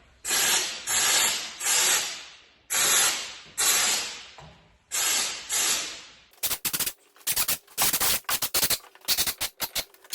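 Air-fed wax oil spray gun hissing in trigger bursts: about seven half-second blasts, then from about six seconds in a quick run of short, sharp blasts.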